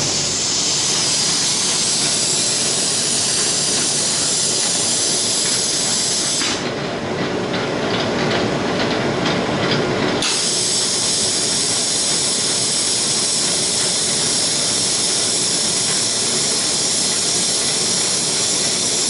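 Air spray gun on an automatic drum painting machine hissing steadily, cutting off for about four seconds around the middle and then starting again, as the machine's timer switches the spraying off and on. Under it runs the drum motor, with a faint regular ticking heard during the pause.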